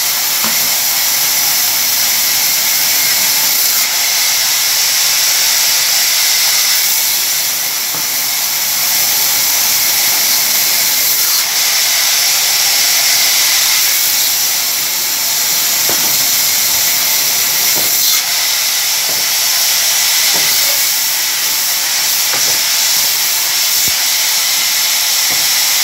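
Vertical band saw ripping a long mango-wood timber lengthwise: a steady, hissing cutting noise.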